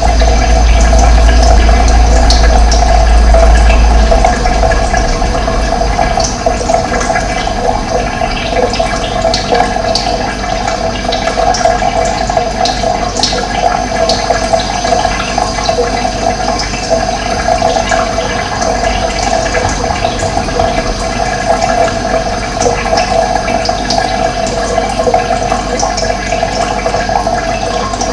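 Running water flowing steadily, with scattered brief high chirps of birds over it. A deep low rumble sits under the first four seconds and then drops away.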